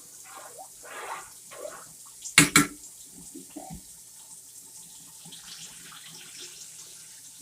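Spoon stirring rice in water in a pressure cooker pot, a soft swishing and sloshing as the rice is washed. About two and a half seconds in come two sharp knocks in quick succession, the loudest sound.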